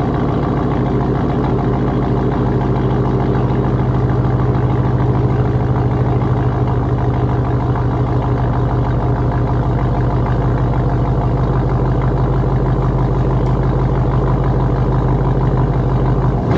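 Straight-piped 2004 GMC Yukon's V8 idling steadily, loud through the open exhaust.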